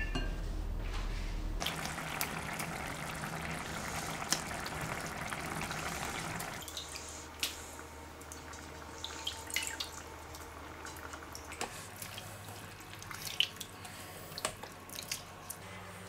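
Spicy fish curry bubbling in a covered pan, a steady simmering hiss that cuts off about six and a half seconds in. After that the pan is quieter, with scattered small wet clicks and ticks.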